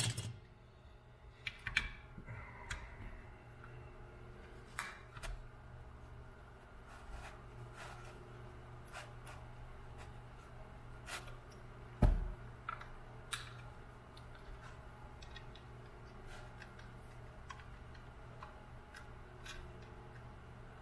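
Scattered small clicks and taps of hands handling a Cry Baby wah pedal's wiring, switch and metal housing, with one louder knock about twelve seconds in.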